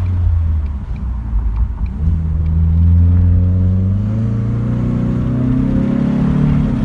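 2019 Ford Mustang EcoBoost's turbocharged 2.3-litre four-cylinder, heard through its active exhaust, accelerating: a low engine drone that climbs steadily in pitch from about two seconds in.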